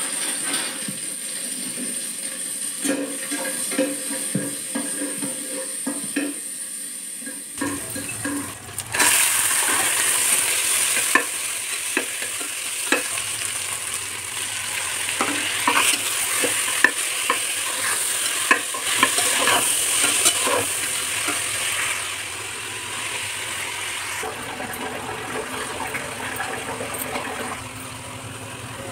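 Chopped onions and vegetables frying in oil in an aluminium pressure cooker, sizzling while a metal spoon stirs and scrapes against the pan in short clicks. The sizzling gets louder about eight seconds in and eases somewhat near the end.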